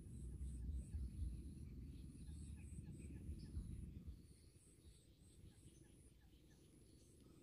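Faint outdoor background with distant birds calling, over a low rumble that fades about four seconds in.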